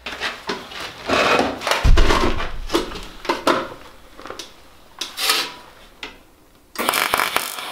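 A stainless steel sheet is handled and set on a steel workbench: scraping, rustling and knocks, the heaviest about two seconds in. Near the end a TIG welding arc strikes and runs with a steady buzzing hiss, too much power for the thin sheet.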